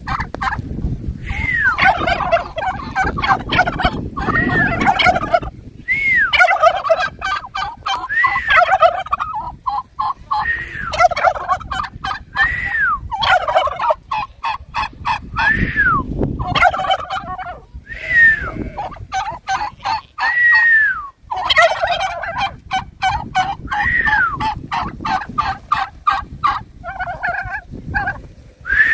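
Several domestic turkey toms gobbling over and over, a fast rattling call every second or two, as they strut in display with tails fanned.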